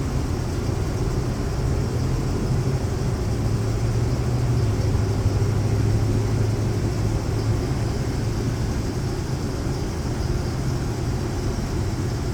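Elevator machinery running: a steady low hum with a rushing noise over it, swelling somewhat louder in the middle before easing back.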